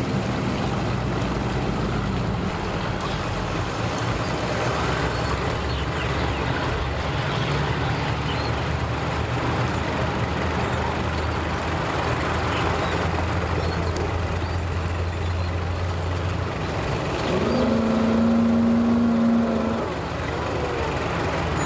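A bass boat's outboard motor runs steadily under power while the boat is driven up onto its trailer. Near the end it gets louder and higher-pitched for a couple of seconds as it pushes the boat onto the trailer.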